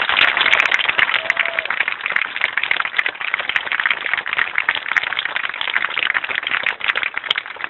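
A crowd applauding with a dense, steady patter of many hands clapping that eases off a little near the end.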